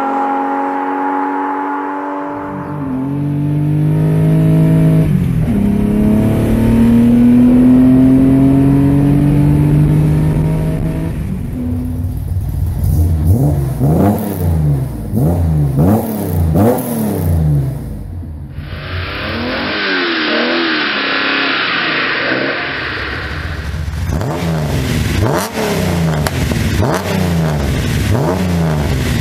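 Nissan Skyline C10 'Hakosuka' straight-six engines. First, a car with a 6-2 exhaust manifold and dual exhaust goes by and accelerates, its note rising for several seconds. Then parked cars are free-revved in a string of sharp blips, about one a second, with a few seconds of hiss between them.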